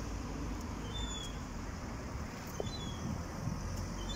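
Short, thin bird calls that slur downward, repeating about every second and a half, over a steady low rumble of street traffic.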